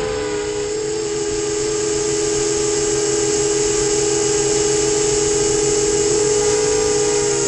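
FT250 quadcopter's brushless motors and propellers whining at a near-constant throttle, several steady tones with a hiss over them, heard through the onboard GoPro.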